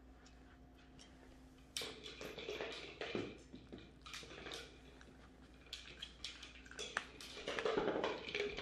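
Bichon Frise puppies rummaging at a fabric snuffle toy for treats: irregular rustling and small clicks that start about two seconds in and get busier near the end.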